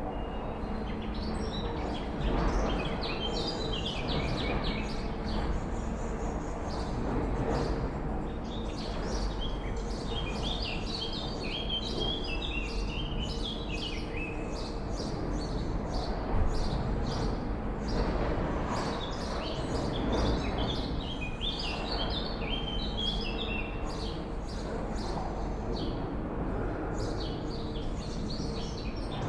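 Swallows twittering continuously, many quick overlapping chirps, over a steady low background hum.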